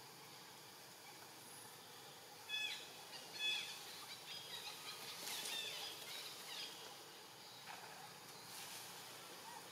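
Two short high-pitched animal calls about a second apart, then a flurry of quick chirping calls, over a faint steady background of insects.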